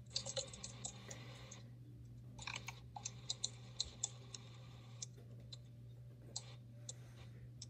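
Faint, scattered light clicks and taps from makeup being handled and applied, over a steady low hum.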